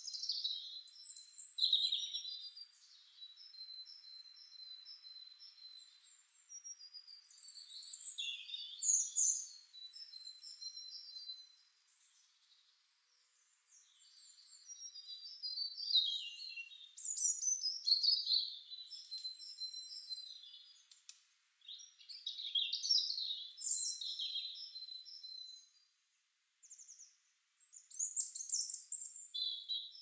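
Songbirds singing and chirping in high, thin warbling phrases and whistles that come and go in bursts, with a couple of short lulls.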